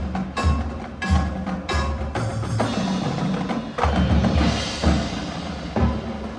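Marching band show music led by percussion: sharp clicks and repeated low drum hits under ringing tones.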